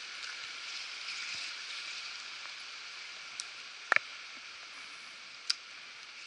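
Steady hiss of rain falling on the creek and the surrounding forest, broken by a few sharp taps, the loudest a quick double about four seconds in.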